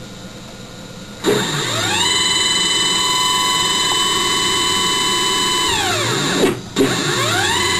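Bare stepper motors driven by a CNC controller in a motion test. After a second of faint hiss, a whine rises in pitch as they accelerate and holds a steady high tone for several seconds. It then falls as they decelerate to a stop and, after a short pause, rises again as the next move starts near the end.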